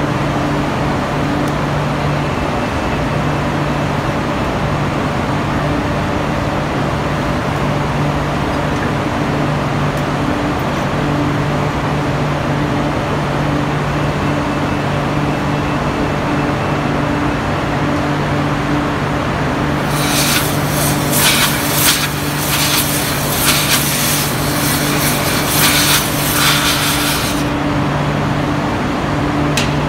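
Steady steel-mill machinery drone with a low two-tone hum. About two-thirds of the way in, a loud sputtering hiss starts at the ladle's slide-gate nozzle, lasts about seven seconds and stops.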